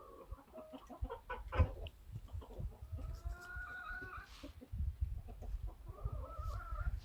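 Hens clucking, with a drawn-out call about three seconds in and another near the end. A sharp knock about one and a half seconds in.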